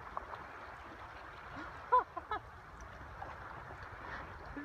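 Lake water lapping around a canoe, with three short pitched calls in quick succession about two seconds in, the first the loudest.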